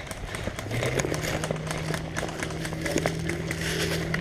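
Footsteps or scuffing on the ground, with a steady engine-like hum that rises slightly in pitch about a second in and then holds.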